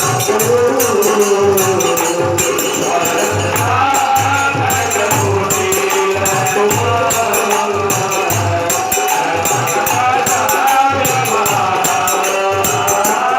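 Hindi devotional song (bhajan) music: a bending melodic line over a steady, fast beat of rattling, tambourine-like jingle percussion.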